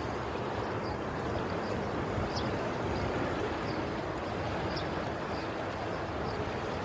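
Steady wash of sea waves breaking on the shore, with faint short high chirps repeating every half second or so.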